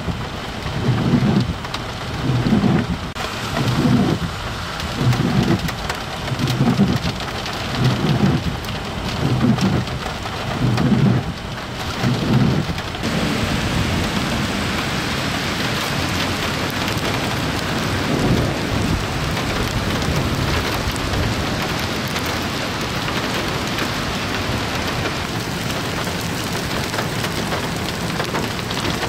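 Steady heavy rain falling on wet, flooded pavement. For about the first half, a low rumbling pulses in a regular rhythm, roughly every second and a half, under the rain.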